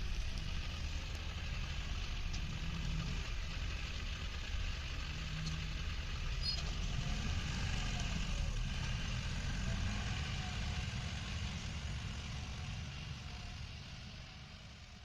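A JCB backhoe loader's diesel engine running steadily. It fades out over the last couple of seconds.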